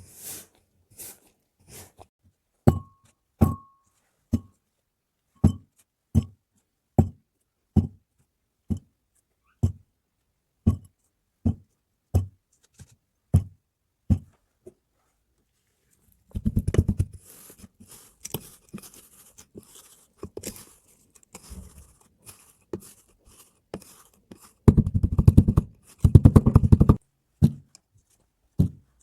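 Kinetic sand being handled: a regular series of soft, low thuds a little under one a second, then two stretches of dense crackling as the sand is squished and cut, the later one the loudest, with light ticks between them.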